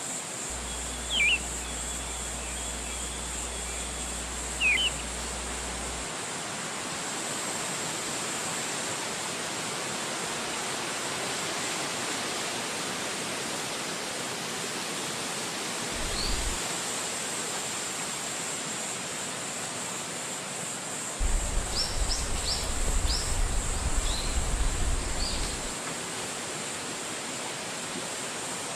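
Wind rushing steadily through forest trees, with a few short bird chirps: two near the start and a quick cluster about three-quarters of the way through. Occasional low rumbles are heard.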